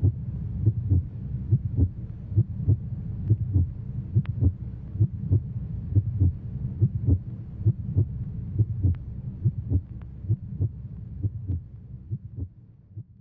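Film soundtrack: a low steady drone with a regular thump about three times a second, fading out near the end.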